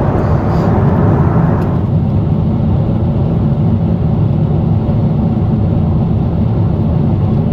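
Steady in-flight cabin noise of a Boeing 747-8i: a low rumble of engines and rushing air heard from a window seat. The upper hiss drops away about two seconds in, leaving a duller low roar.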